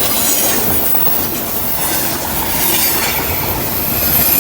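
A long train passing close by, its wheels running loudly over the rails. A thin, high squeal of wheels on rail comes in near the end.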